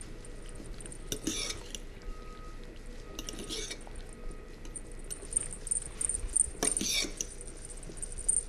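A metal fork stirring thick soup in a glass saucepan, scraping and clinking against the glass in three short rasps, with small drips as beaten egg is poured in.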